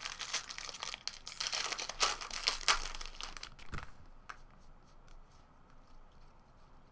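Trading-card pack wrapper being torn open and crinkled, dense crackling for about four seconds, then fainter handling clicks.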